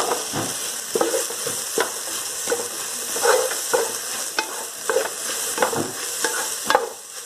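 Ground spiced beef and onion filling frying and sizzling in a pan as a spatula stirs and scrapes it, just after curry leaves go in. There is a steady sizzle with irregular scraping strokes of the spatula against the pan.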